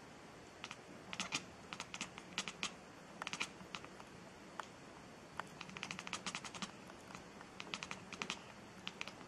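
Light, sharp clicks and taps coming in irregular quick clusters, several a second.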